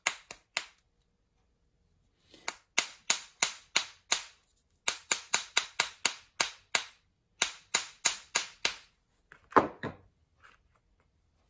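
Small hammer striking metal in quick runs of blows, about four a second, with short pauses between runs and one heavier blow near the end. The blows are knocking a shotgun primer casing out of a screwdriver bit attachment.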